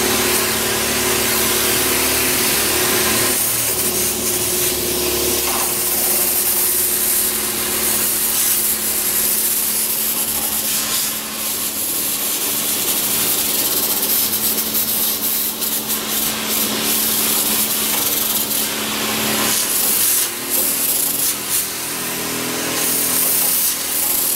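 Electric knapsack sprayer spraying detergent water through its lance nozzle into a panel radiator's fins: a steady, loud hiss of spray over the even hum of the pump, with a few brief breaks near the end.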